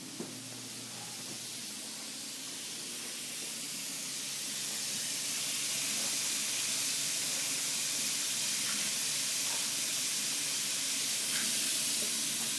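Water running steadily from a tap into a sink, a rushing hiss that grows louder over the first half and then holds.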